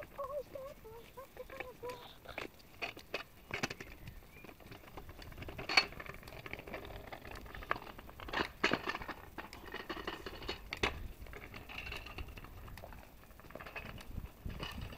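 Footsteps of several people walking on paving, with scattered irregular clicks and knocks. A brief wavering high-pitched call sounds near the start.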